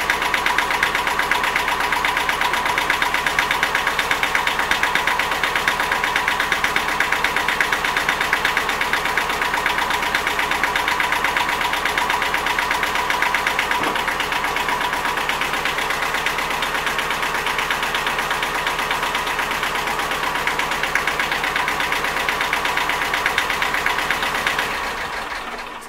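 Three-cylinder Yanmar marine diesel running steadily with an even, rapid beat, then shut off and running down near the end.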